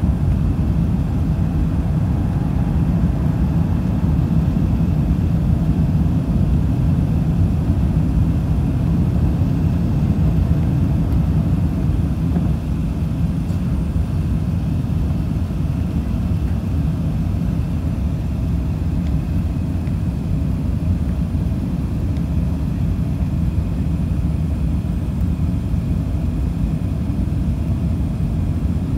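Steady low rumble of an Airbus A380-861 heard inside the cabin during the climb after takeoff: its four Engine Alliance GP7270 engines at climb power, with the rush of air over the wing. The level eases slightly about twelve seconds in.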